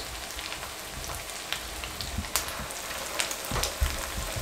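Hot oil sizzling in a frying pan as raw minced-meat kababs are lowered into it: a steady hiss with scattered crackling pops.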